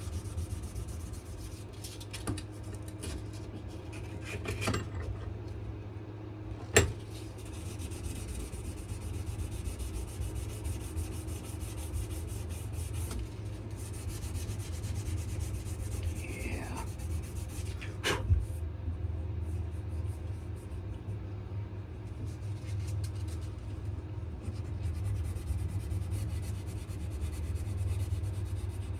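Sandpaper rubbing against a wenge and maple knife handle as it is hand-sanded, over a steady low hum. Two sharp knocks cut in, one about 7 seconds in and one about 18 seconds in.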